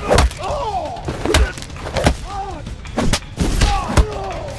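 Movie fight sound: about half a dozen sharp punch and kick impacts, each followed by short arching shouts and grunts of effort from the fighters.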